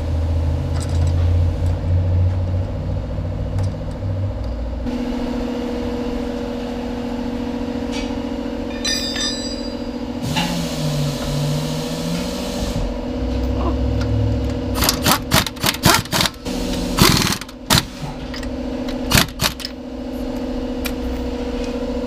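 A steady mechanical hum with tool clatter while the wheels are changed, and several short, loud rattling bursts from an impact wrench on the lug nuts about two-thirds of the way in.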